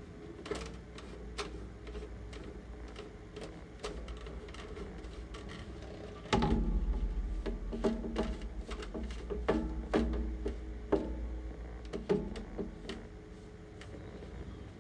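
Paper towel wiping and rubbing over a white plastic Rubies stormtrooper armor piece, taking off wet weathering paint, with irregular clicks and knocks as the plastic is gripped and turned. A low rumble under the rubbing grows louder about six seconds in.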